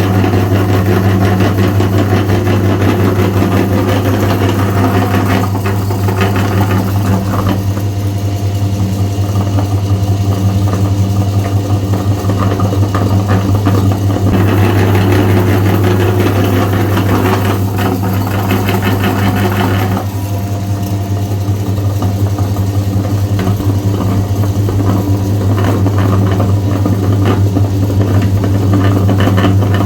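Electric meat grinder motor running with a steady strong hum while grinding Oreo cookies; the grinding noise over it swells and fades as the load changes, and it cuts off suddenly at the end.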